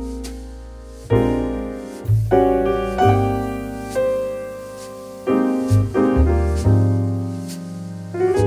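Background piano music: soft chords over low bass notes, each struck and left to fade.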